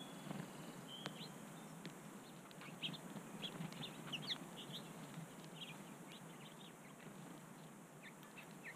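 Small songbirds chirping: short, high chirps, with a quick run of them about three to four seconds in and scattered ones after, and a couple of brief whistled notes in the first second.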